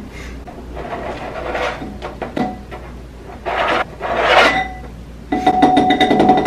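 A knife blade scraping diced jalapeno off a flexible plastic cutting mat into a glass bowl, in several rasping strokes. The loudest comes about four seconds in, and the last, longer stroke near the end rings with a steady high tone.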